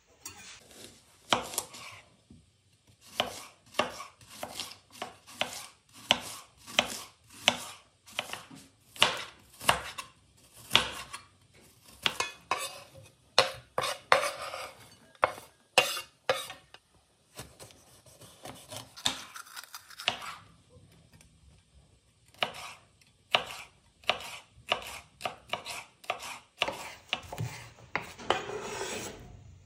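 Kitchen knife slicing red onion and then red bell pepper on a bamboo cutting board: a run of sharp knocks as the blade meets the board, about one or two a second. Midway there is a clatter and scrape as the sliced onion is pushed off the board into a glass bowl.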